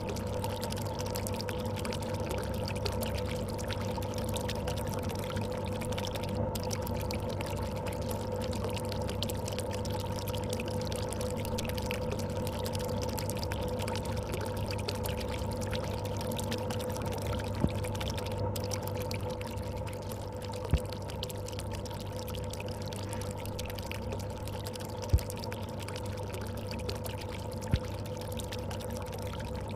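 Aquarium running: water pouring and bubbling steadily over a constant motor hum from its pump. Four short sharp clicks in the second half.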